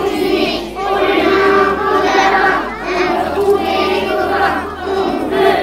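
A group of children singing together in chorus over a song's backing track, with a steady bass line underneath.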